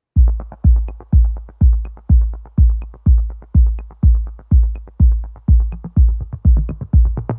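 Electronic background music with a heavy kick drum about twice a second and light ticks between the beats.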